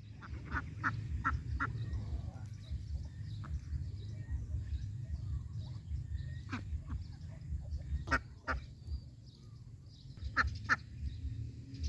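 Geese calling in short honks: a quick run of about five near the start, then scattered single calls and pairs later on. A steady low rumble sits underneath.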